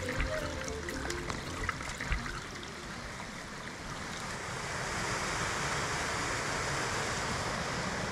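Water running over mossy rocks in a small stream, growing louder about halfway through into the steady rush of a small cascade.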